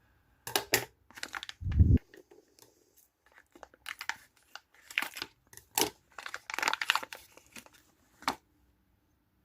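Packaging being opened by hand: irregular crinkling, rustling and tearing, with a low thud about two seconds in.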